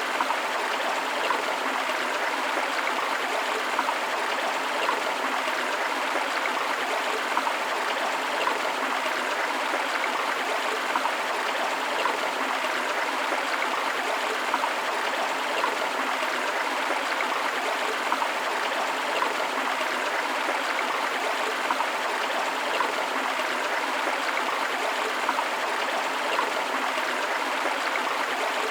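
Steady rushing of a forest river with a small waterfall, water flowing and splashing over rocks in an even, unbroken rush.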